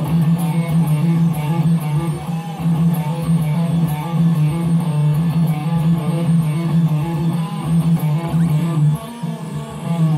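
Background music led by guitar, with a steady strummed rhythm and a bass line.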